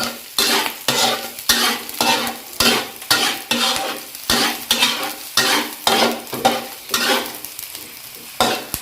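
Garlic and onion sizzling in a little oil while a utensil stirs and scrapes the pan about twice a second; the strokes slow and stop near the end, then one more.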